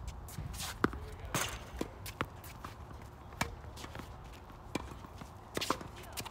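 Tennis ball being hit by racquets and bouncing on a hard court during a rally: a series of sharp pops, the loudest about a second in.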